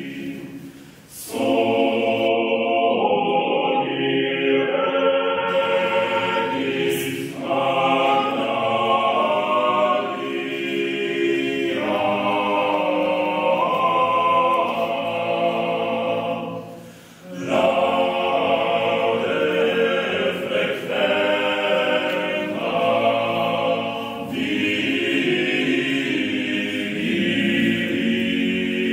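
Male vocal ensemble of eight singers singing a cappella in several parts at once, in long held phrases, with short breaks between phrases about a second in and again around the middle.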